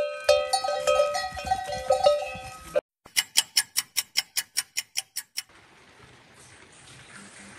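Metal collar bell on a horse clanging irregularly as the horse moves its head. After about three seconds it cuts off, and a quick run of about a dozen sharp clicks follows, about five a second, then a faint even hiss.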